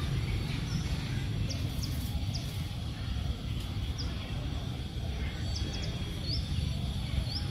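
Outdoor ambience: a steady low rumble with a small bird giving short high chirps, roughly one a second.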